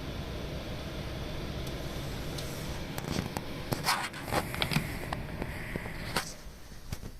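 Steady fan and airflow noise from a Daikin ceiling-suspended air conditioner running. A cluster of sharp clicks and scraping knocks comes around the middle, and the running noise falls away near the end.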